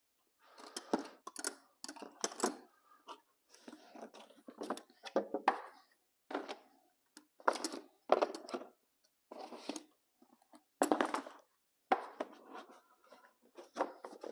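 Intermittent rustling and clicking as metal combination wrenches and their packaging are handled: about a dozen short irregular bursts.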